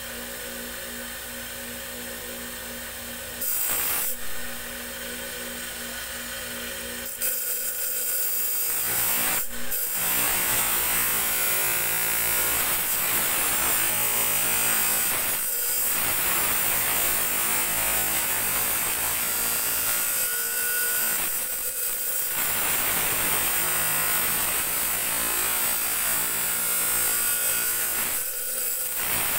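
Grinding wheel running with a steady hum. From about seven seconds in, a small steel tari blade is ground against it to shape it, in long grinding passes with brief pauses between them.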